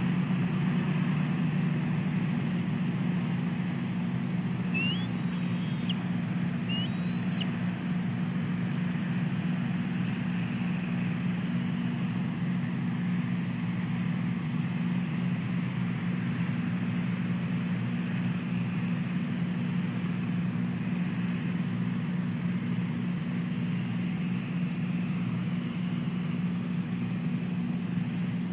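A steady low hum of background noise with no change in level. About five to seven seconds in there are a few faint, brief high chirps.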